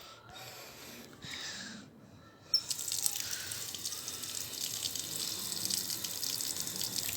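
Water from a toy waterfall starts splashing down suddenly about two and a half seconds in, then runs steadily.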